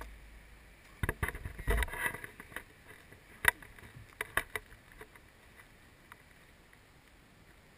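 Rustling and clicking as a spinning rod is cast and reeled in on a leaf-covered bank, with a sharp click about three and a half seconds in; the last few seconds are only a faint outdoor hush.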